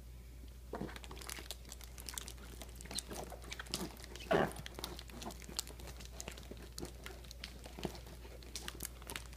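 American Akita puppy licking and chewing peanut butter from a plastic jar held inside his plastic cone collar: wet licks and smacks mixed with crinkly clicks of plastic, and one brief louder noise a little over four seconds in.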